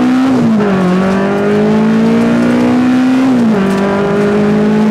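Toyota Starlet's naturally aspirated four-cylinder with individual throttle bodies, revving hard under full acceleration, heard from inside the cabin. Its pitch climbs, drops at a quick upshift about a third of a second in, climbs steadily again, and drops at a second upshift about three and a half seconds in.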